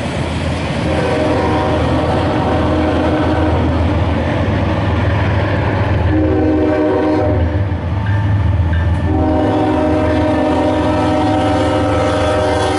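Freight locomotive's multi-note air horn sounding for a grade crossing: a long blast, a short one, then a long one held as the locomotive nears. Under it runs the low rumble of the approaching train.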